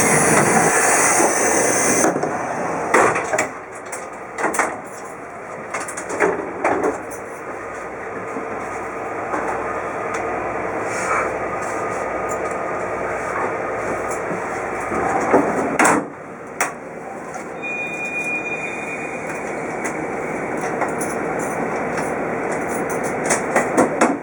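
Inside a Twilight Express 24-series sleeper coach under way: steady running noise of the train, louder for the first two seconds, with scattered short knocks and clicks.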